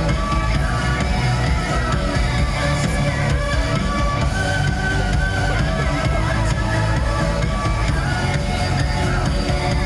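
Music playing through a stage's loudspeakers, loud and steady throughout.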